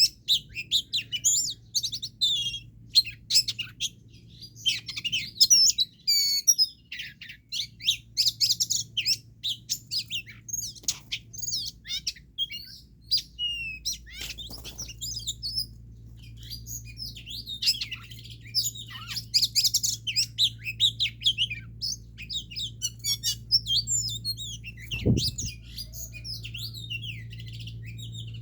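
A wild-caught songbird singing hard: dense runs of rapid, high chirps and trills broken by short pauses, over a steady low hum, with a single thump about 25 seconds in.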